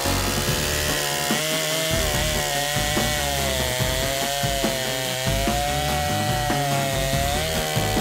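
Woodland Mills HM122 portable band sawmill cutting through a log: its engine runs steadily under load with a whine that wavers slightly in pitch as the blade feeds through the wood.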